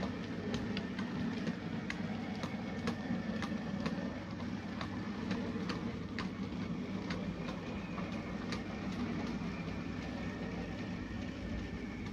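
OO gauge model goods train running past, its wagon wheels clicking over the rail joints about twice a second over a steady hum of the motor and rolling wheels.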